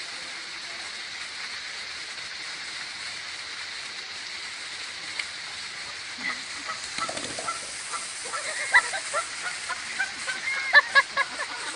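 A goose honking in short, repeated calls that start about six seconds in and come thicker and louder toward the end, over a steady background hiss.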